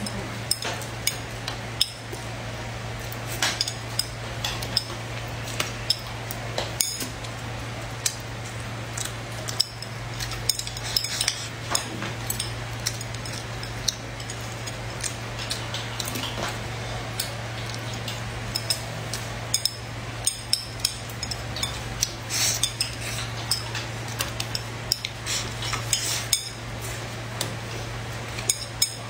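Chopsticks clicking and scraping against a ceramic plate, many short sharp clicks at irregular intervals over a steady low hum.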